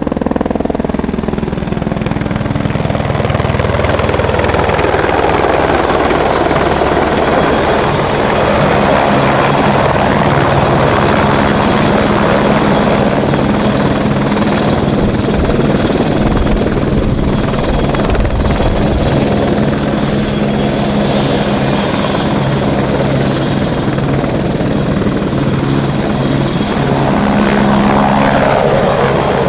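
Aérospatiale AS355F2 Ecureuil 2 twin-turbine helicopter running close by as it hovers low and lifts off. Its rotors give a loud, steady beating noise over a thin high turbine whine, swelling a little near the end as it climbs away.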